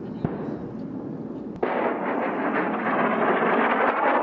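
A munition exploding on impact: a sharp crack about a second and a half in, then a loud rushing blast noise for about three seconds that stops abruptly.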